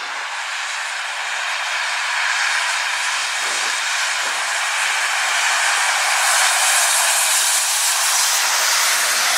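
Flooding river water rushing by in a steady hiss that builds over the first couple of seconds and then holds.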